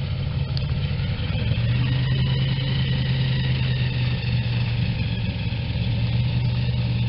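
Airboat engine and caged propeller running slowly, a steady low hum that grows a little louder about a second and a half in.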